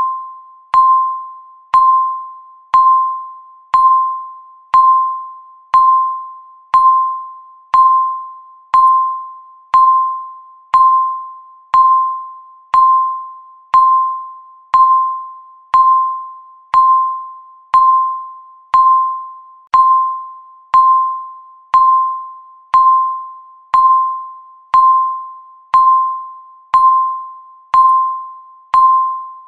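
Countdown timer beep: a single mid-pitched electronic tone that strikes once a second, each beep sharp at the start and fading out before the next. Each beep marks one second ticking down on the timer.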